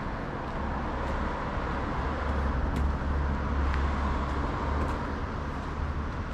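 Road traffic noise: a vehicle going by, deep and steady, growing louder toward the middle and easing off again near the end.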